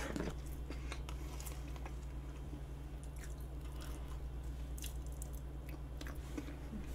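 Soft, faint chewing of vanilla pound cake with whipped cream, with a few faint clicks, over a steady low hum.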